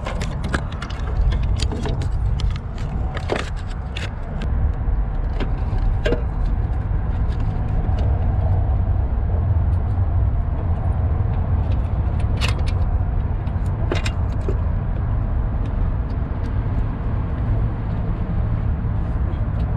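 Scattered metallic clinks and knocks of a replacement starter motor and tools being handled and worked into place, over a steady low rumble.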